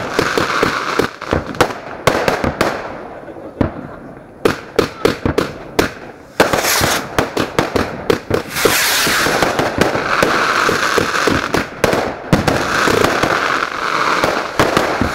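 Fireworks going off: a rapid string of sharp bangs, then from about six seconds in a dense, continuous crackle of many small bursts with a fizzing hiss.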